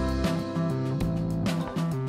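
Background music with strummed and plucked acoustic guitar and a steady beat.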